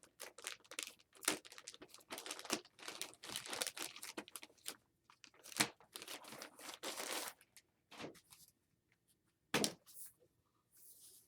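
Packaging crinkling and tearing as a laptop is unwrapped, in dense crackling bursts for about seven seconds, then a few separate knocks as the handling slows.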